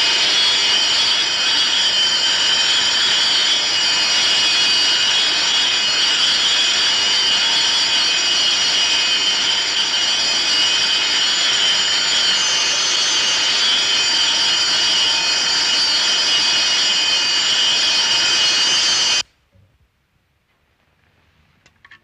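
Electric alarm bell ringing loud and unbroken, then cutting off suddenly near the end.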